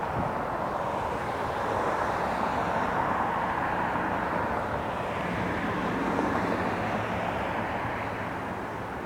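Airliner passing, its engine noise swelling through the middle and easing off toward the end.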